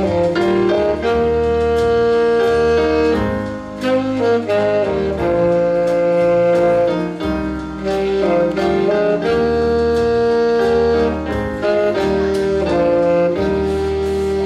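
Alto saxophone playing a slow melody of long held notes joined by shorter passing notes, over a keyboard accompaniment with sustained bass notes.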